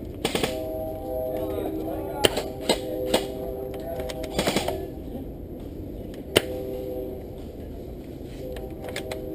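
Airsoft gunfire: sharp pops of single shots and short rapid bursts, a burst near the start, scattered single shots, another burst about four and a half seconds in and a sharp single shot near six seconds.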